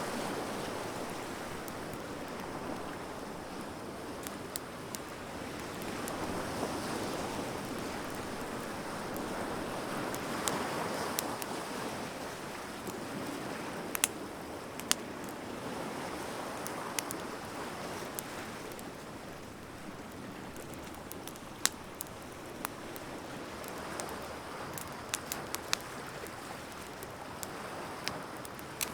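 Wood fire burning with sharp, scattered crackles and pops over a steady hiss, with the soft surge of surf swelling and easing every few seconds.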